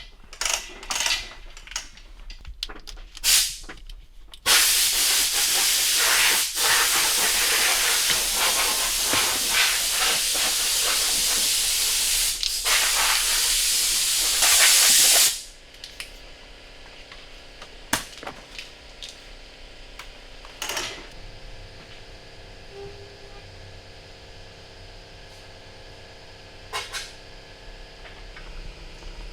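Pressurised spray hissing: a few short spurts, then one long continuous hiss of about ten seconds that cuts off sharply, followed by a few more short spurts.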